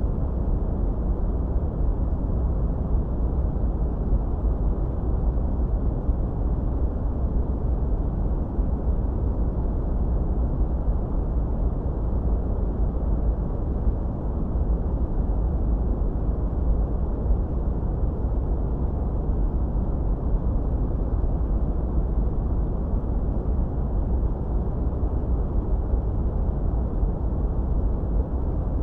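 Steady, unbroken noise track of the kind played for tinnitus relief. It is deep and muffled, with most of its weight low down and almost no high hiss.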